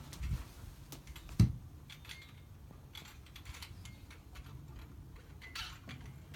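Scattered light clicks and knocks of hands and hardware handling while a xylophone is mounted, with one sharp knock about a second and a half in.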